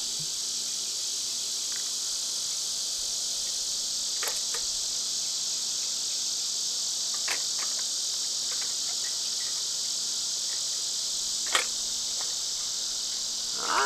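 Steady high-pitched chorus of katydids, with a few sharp clicks about four, seven and eleven and a half seconds in.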